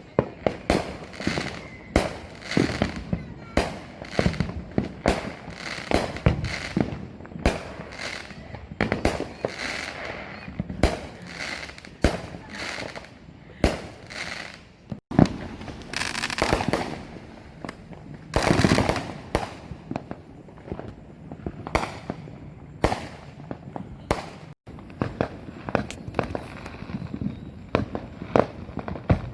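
Consumer fireworks going off all around in rapid succession, several sharp bangs a second, with a couple of longer, louder bursts in the middle.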